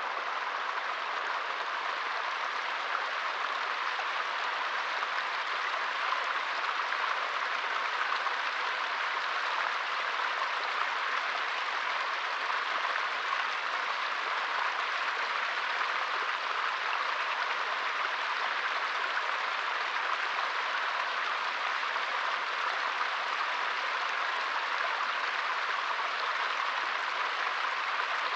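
Small forest stream flowing: a steady, bright, unbroken rush of water.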